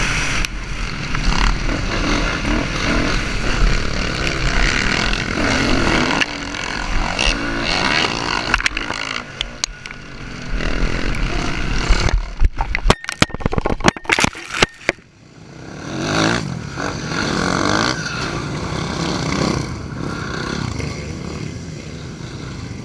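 Motocross bike engine revving and easing off as it races around a dirt track, heard from the bike itself with heavy wind noise on the microphone. About halfway through, the sound breaks up for a couple of seconds into a string of sharp cut-outs and bangs before the steady noise returns and slowly fades.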